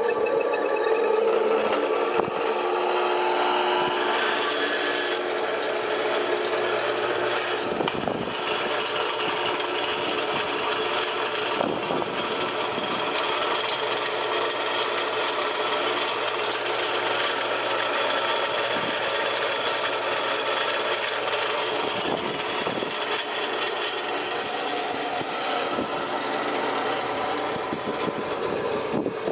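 Wheeled electric rebar cutter (DCM DKC-35W) running, with irregular sharp metallic knocks over a steady mechanical noise.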